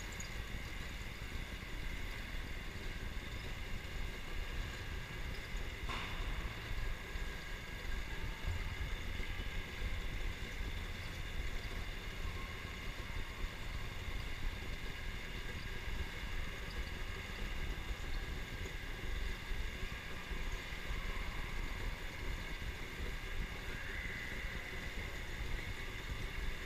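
Electric go-kart motor running at speed, a steady high whine over low wind rumble on the microphone. There is one sharp click about six seconds in, and the whine steps up in pitch near the end as the kart accelerates.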